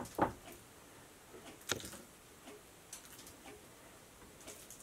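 Quiet hand-handling of meatloaf mixture being pressed into glass baking dishes: a few scattered soft clicks and taps, the sharpest about two seconds in.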